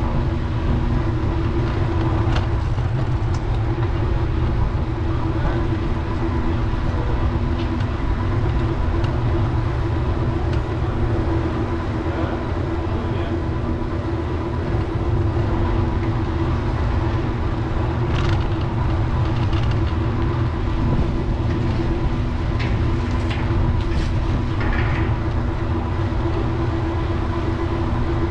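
Steady low rumble of a bicycle riding along a city street: wind and road noise, with a constant hum underneath and a few light clicks or rattles.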